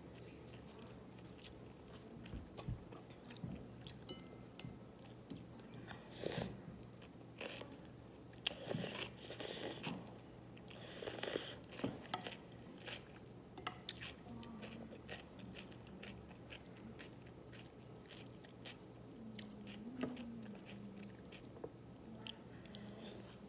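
Close-miked eating of naengmyeon cold noodles and cucumber: wet chewing and crunching in a string of small clicks, with a cluster of louder bites around the middle.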